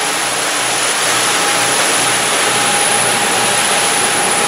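Steady, loud rush of a 48-foot Cabo sportfishing boat running at speed: engine noise mixed with wind and churning wake, with a thin steady whine running through it.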